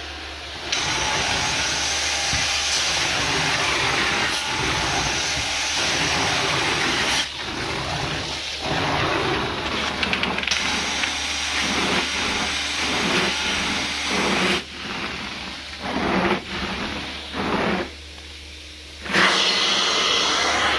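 Cleaning equipment's vacuum suction hissing loudly, broken off and started again several times, in short strokes of about a second near the end, over a constant low hum.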